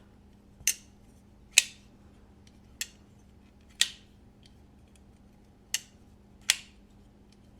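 Tuya Hellfire Mini folding knife being flicked open and snapped shut by hand: about six sharp, short metallic clicks of the blade locking and closing, irregularly spaced.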